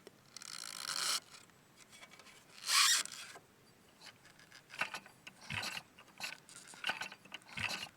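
Piaggio Ciao moped's CVT drive belt squeaking and rubbing in a few rasping strokes, the loudest about three seconds in. The rider judges it harmless, just the belt, which he finds maybe a bit loose.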